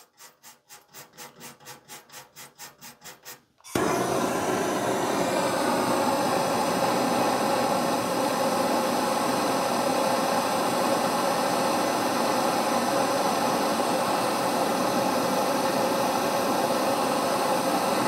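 A stainless steel wire brush scrubbing an aluminum microchannel coil in quick strokes, about five a second. About four seconds in, a propane torch cuts in abruptly and runs with a steady hiss as it heats the coil to solder a pinhole refrigerant leak.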